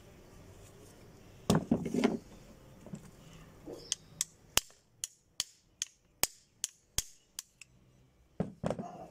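Steel pliers knocking and tapping on a rusted, jammed revolver packed with dirt: a few heavy knocks, then about ten sharp metallic taps, two or three a second, and two more knocks near the end.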